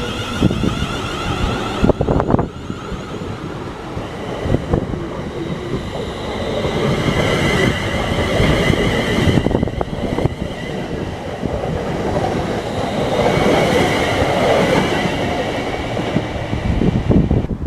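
A train running through a station on the main line: steady wheel-on-rail rumble with a high, thin squeal and a few sharp clicks from the wheels over rail joints.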